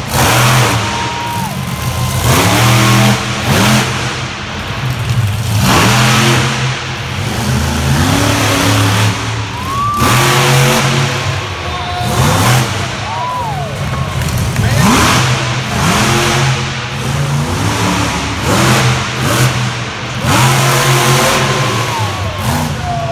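Monster truck's supercharged V8 engine revving hard in repeated surges every couple of seconds as the truck drives and jumps the dirt course, its pitch sweeping up and falling back with each throttle blip.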